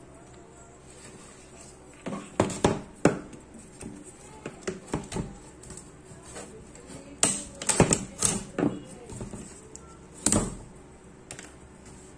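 Irregular sharp clicks and knocks as a monitor's LCD panel and its metal frame are handled and pried apart during disassembly, starting about two seconds in, in two main clusters, with a last knock about ten seconds in.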